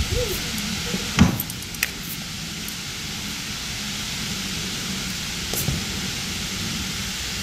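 Steady hiss of wind on the microphone, with a single sharp knock about a second in.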